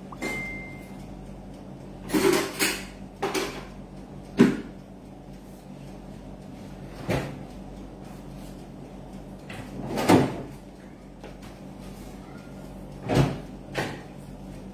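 Scattered household knocks and bumps, about eight of them at irregular intervals, over a steady low hum, with a short high beep near the start.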